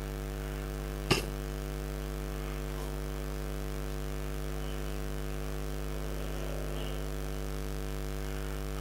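Steady electrical mains hum, with one short click about a second in.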